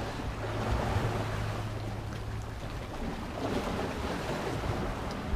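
Sea surf washing against rocks, with wind buffeting the microphone. A low steady hum runs under it and stops about two and a half seconds in.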